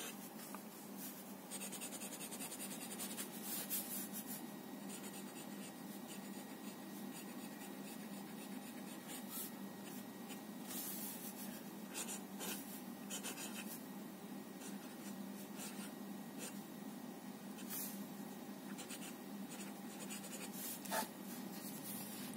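Faint scratching of a Staedtler Initium Metallum fountain pen nib on paper as cursive letters are written, in many short strokes over a steady low hum.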